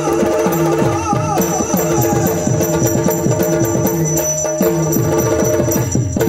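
Yakshagana accompaniment without singing: a fast run of drum strokes that fall in pitch, over a steady held drone.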